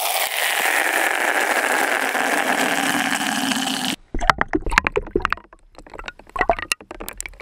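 Water from a tap pouring into a bucket, heard from inside the bucket as a steady rush. About four seconds in this cuts off and is followed by a run of sharp clacks and splashes as ice cubes are dropped into the water.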